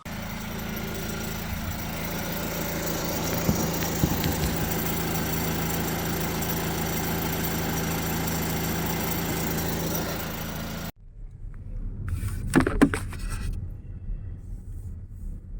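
Geely car engine idling steadily for about eleven seconds, then stopping abruptly, followed by a few scattered knocks and clatter.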